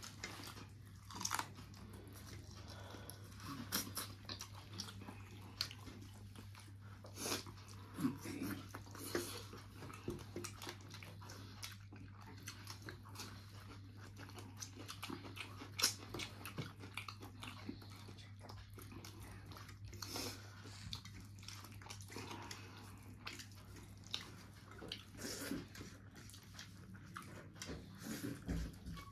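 People chewing and biting through a meal of curry and roti, with irregular small clicks and crunches over a steady low hum.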